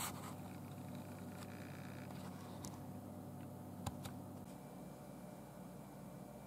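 Faint steady low electrical hum with two light clicks close together near the four-second mark; the hum cuts off about four and a half seconds in, leaving only faint room tone.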